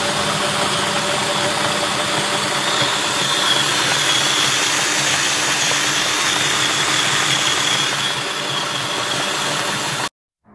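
Cordless drill turning a grain mill's roller shaft, crushing malted barley: a steady motor whine mixed with the grinding of the grain, cutting off suddenly about ten seconds in.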